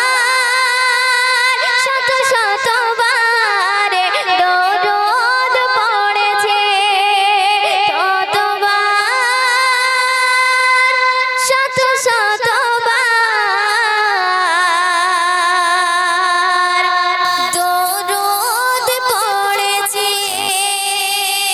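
A girl's solo voice singing a Bengali Islamic gojol into a microphone, with long held notes that waver in vibrato and slide between pitches. A low steady hum joins under the voice about three-quarters of the way through.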